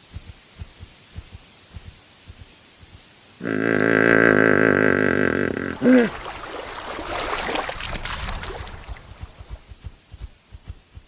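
Camel groaning: a loud, harsh moan of about two seconds, a short cry that bends in pitch, then a rasping, breathy growl. Soft, regular thumps run before and after the call.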